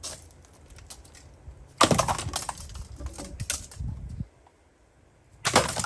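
Hammer blows on a plastic cordless hammer drill, each strike a burst of sharp knocks with the housing clattering and cracking: one long burst about two seconds in, a few lighter knocks after, and another burst near the end.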